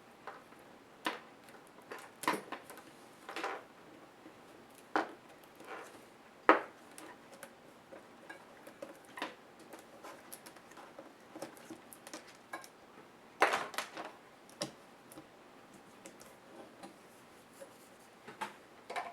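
Irregular clicks and light knocks of small plastic and metal laptop parts being handled and set down during disassembly, with a few sharper knocks among them.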